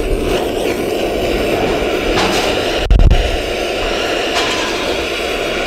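Handheld butane torch lighter burning with a steady rushing flame, held against charcoal briquettes in a kettle barbecue to light them. A loud thump about three seconds in.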